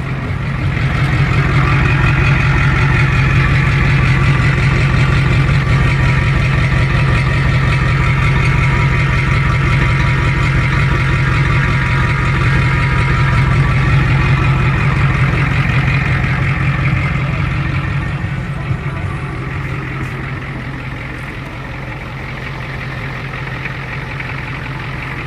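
Ford 6.9 L V8 diesel engine running steadily through a Flowmaster 40 Series chamber muffler, with a deep, even exhaust note. It gets louder about a second in and eases off somewhat over the last third.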